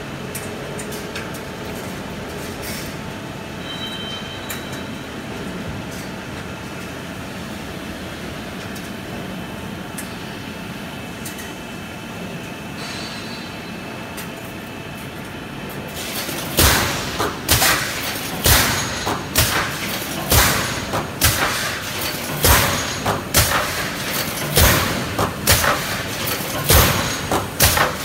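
Pneumatic wire-mesh welding machine: a steady workshop hum for the first half, then, from about halfway through, a run of sharp clacks and thumps, one or two a second, as its rows of pneumatic welding heads press down on the steel wires and release.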